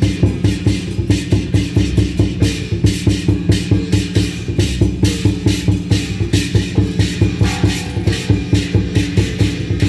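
Loud electronic dance music with a fast, steady beat over sustained bass notes.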